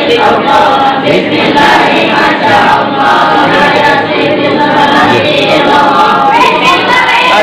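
A large group of voices singing together in unison, carrying on without a break.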